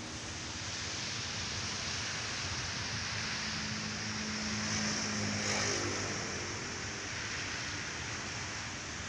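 Steady outdoor rushing noise of wind and sea surf, with a faint motor drone that swells about halfway through and fades again.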